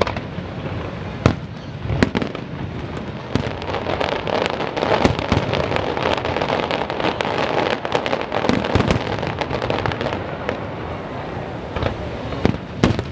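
Aerial fireworks shells bursting in a rapid series of sharp bangs, with a dense stretch of fast crackling through the middle.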